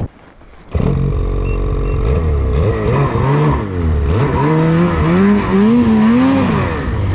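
Snowmobile engine running and being revved up and down several times, its pitch rising and falling in waves in the second half. It drops out for under a second at the very start.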